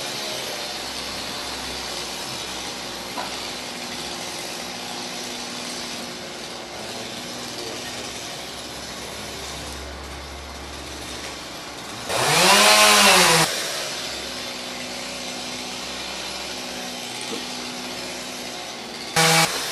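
Stihl two-stroke chainsaw idling steadily between cuts. About two-thirds of the way in the throttle is blipped once, the engine revving up and back down over about a second and a half, and a second short rev comes near the end.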